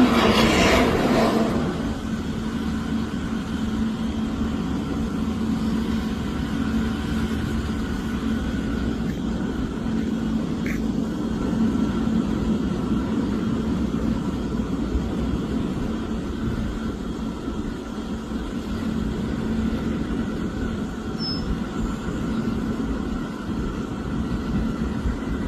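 Steady engine rumble with a continuous low hum, a little louder in the first second or two.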